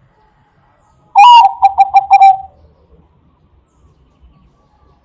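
Zebra dove (perkutut bangkok) cooing: one loud call about a second in, a longer opening note followed by a quick run of short notes that drop slightly in pitch.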